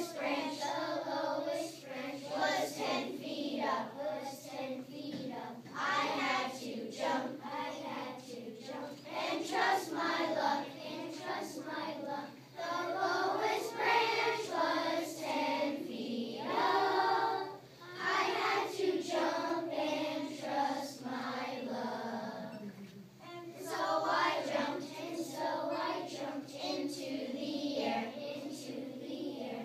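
A large group of young children singing a song together, one sung phrase after another with short breaks between.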